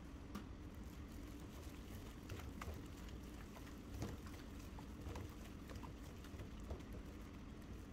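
Wet squelching and clicking of a plastic-gloved hand mixing chicken pieces into a yoghurt marinade in a stainless steel bowl, in irregular squishes over a steady low hum.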